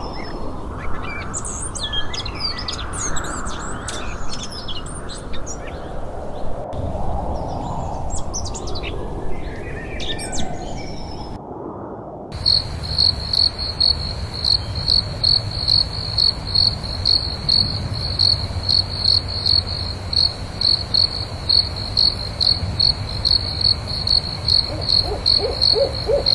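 Birds singing and chirping, then, after a sudden cut about twelve seconds in, crickets chirping steadily at about two chirps a second. Near the end an owl hoots.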